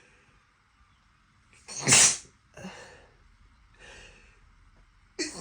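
A person sneezing: one loud sneeze about two seconds in, then a couple of softer breaths, and the start of another sneeze at the very end. The sneezes are set off by sniffing a strongly scented candle.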